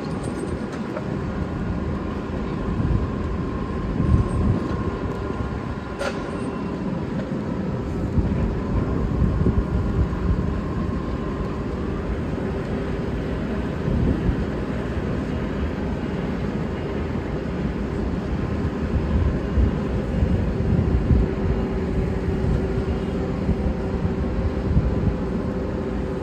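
Steady low rumble of heavy construction machinery, diesel engines of the cranes and rigs running, with a faint steady hum over it and a single sharp click about six seconds in.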